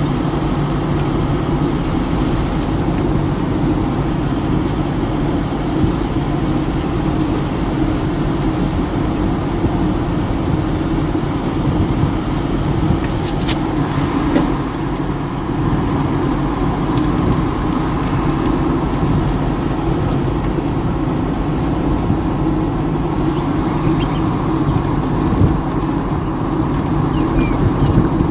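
Steady running noise of a road vehicle cruising along a paved road: a continuous engine hum mixed with tyre and wind noise, holding an even level throughout.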